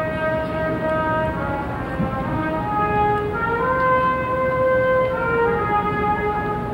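Slow instrumental music in long held notes, several parts moving together from chord to chord.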